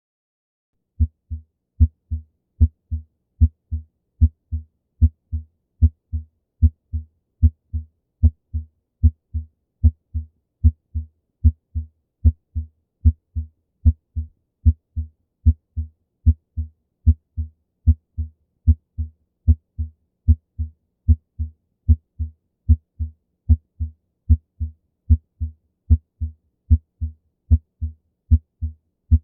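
Normal human heart sounds through a stethoscope: a steady, regular "lub-dub", the first sound (S1) from the mitral and tricuspid valves closing and the second (S2) from the aortic and pulmonary valves closing. It starts about a second in and repeats a little more than once a second, with no murmur between the beats.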